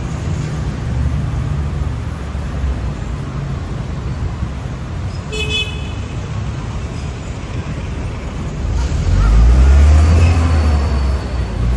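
City street traffic rumbling steadily, with one short vehicle horn toot about five seconds in. Near the end a heavier vehicle passes close, and the low rumble grows louder.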